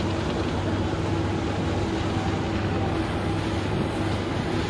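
A steady engine drone with a constant low hum, under wind rushing over the microphone.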